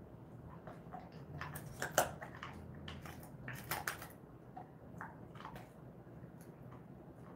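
Jindo-mix dog chewing a treat: two clusters of sharp crunches, about two and four seconds in, then a few lighter chews.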